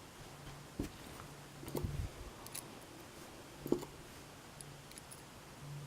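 A few faint, sharp metallic clicks and taps as small lock parts, the pins and core of a disassembled pin-tumbler lock, are handled, three or four times over a low faint hum.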